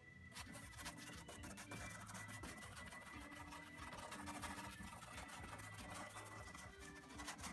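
Paintbrush scrubbing acrylic paint onto a canvas in many quick strokes, a faint scratchy rubbing, over soft background music.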